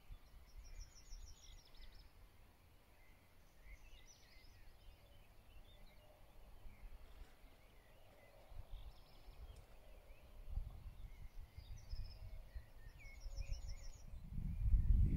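Birds singing at dawn, with short rapid high trills near the start and again near the end and scattered softer calls between, over a low rumble that swells to its loudest in the last second.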